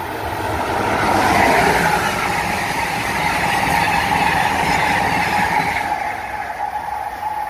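Amtrak passenger train of stainless-steel Amfleet coaches running through the station at speed, its wheels rushing and rumbling on the rails. The noise builds to a peak about a second and a half in, holds, then fades near the end as the last car goes by, with a steady high ringing note running under it.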